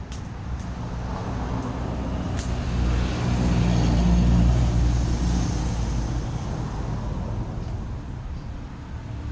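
Motor vehicle engine passing by: a low hum that grows louder to a peak about four seconds in, then fades away.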